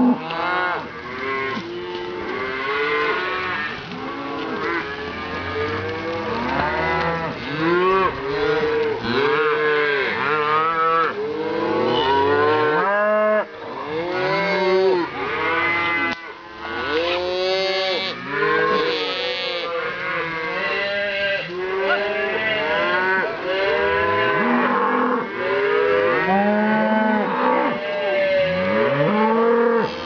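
A herd of beef cows and calves mooing, many calls overlapping one another almost without pause.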